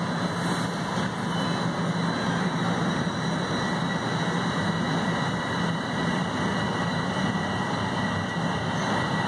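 Toronto Rocket subway train heard from inside the car as it pulls out of the station: a steady low rumble and hiss of the running train, with a faint steady high tone over it.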